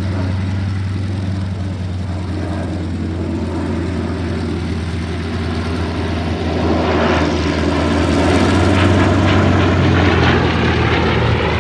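Bristol Blenheim's twin Bristol Mercury radial engines droning steadily in flight, growing louder with a rising rush of noise from about seven seconds in as the aircraft passes close.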